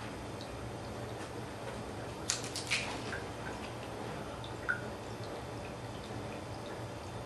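A small toy ball clicking down onto a tile floor, four or five quick sharp hits in a row about two seconds in, then a single tap near five seconds as it is batted.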